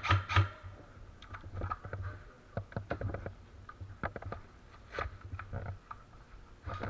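Faint, scattered clicks and taps at irregular intervals, over a low hum.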